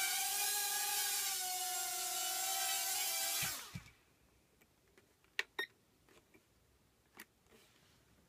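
Hubsan H107D micro quadcopter's four small coreless motors whining as it hovers, the pitch wavering slightly. About three and a half seconds in, the whine winds down and stops as it lands. A few faint clicks follow.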